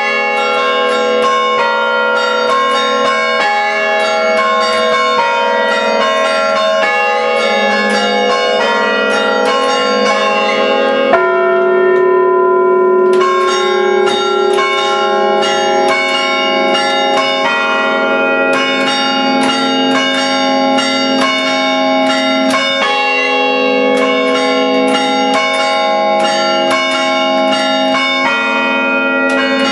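Five church-tower bells rung by hand through rope pulls, their clappers striking in quick rhythmic patterns with the tones overlapping and ringing on. About eleven seconds in the strikes stop for some two seconds while a lower bell rings out, then the pattern resumes.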